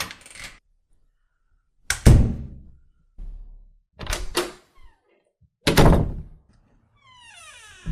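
A door being opened and shut: a series of latch clicks and door thuds, the loudest about two seconds in and about six seconds in, with a quick pair around four seconds. Near the end a sweeping, gliding sound comes in.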